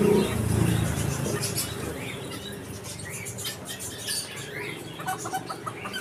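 Many caged birds chirping in scattered short, high calls over the general din of a bird market.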